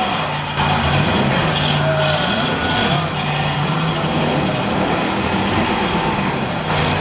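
Demolition derby cars' engines running hard, the pitch rising and falling a few times as they rev.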